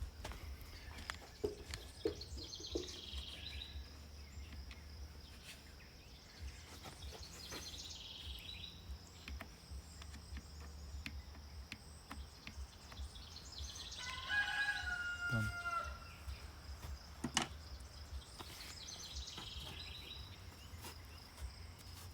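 A rooster crowing once, about two-thirds of the way in, over a faint steady low hum with scattered light clicks and one sharp knock a few seconds later.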